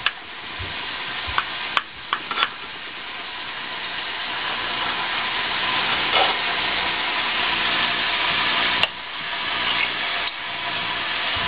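Metal serving spoon scraping and clicking against a stoneware baking dish and a plate while scooping out baked pasta, with a few sharp clicks about two seconds in and one near the end, over a steady hiss that slowly grows louder.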